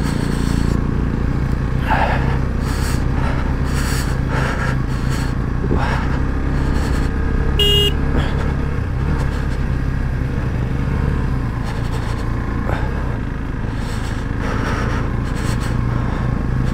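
KTM 390 Adventure's single-cylinder engine running steadily at low road speed, with occasional knocks from the bike on the rough, slushy surface. There is a brief high-pitched tone about eight seconds in.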